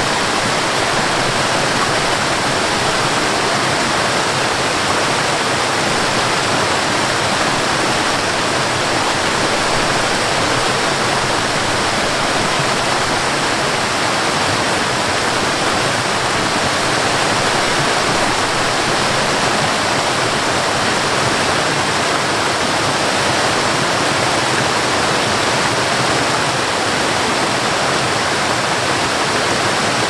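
Cascading waterfall: water pouring down over rock ledges in a steady, unbroken rush.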